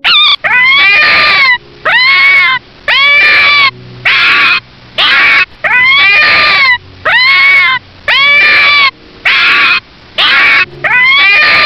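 An animal calling over and over, about one call a second, each call high-pitched and rising then falling in pitch.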